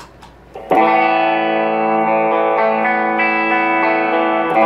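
Electric guitar, a Stratocaster-style instrument, played through a Yamaha RA100 amplifier on its own. After a brief quiet moment it comes in about three-quarters of a second in with long held lead notes that change pitch several times, lightly distorted.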